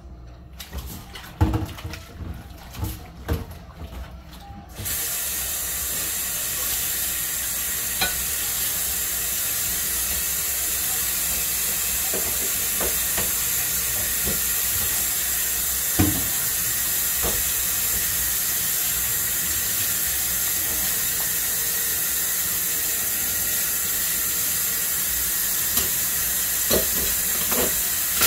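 Kitchen faucet running steadily into a stainless steel sink of soapy water, turned on about five seconds in. Before it, and a few times over it, come knocks and clinks of dishes being handled in the sink.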